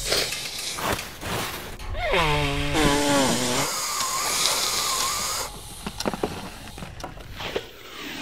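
A person blowing their nose hard into a tissue: a falling, whining tone about two seconds in, then a long, noisy blow that wavers in pitch. It ends in a few small clicks and rustles.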